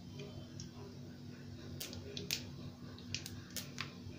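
Mustard and cumin seeds spluttering in hot oil for a tempering: faint, scattered sharp pops, coming more often in the second half.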